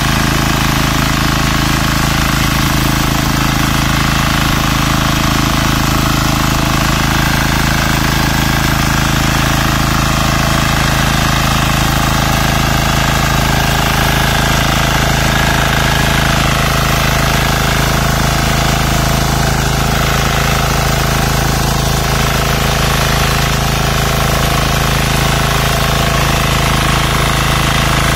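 Texas Alligator 9DPE power weeder's engine running steadily at a constant pitch while its rotary tines work through the flooded paddy mud.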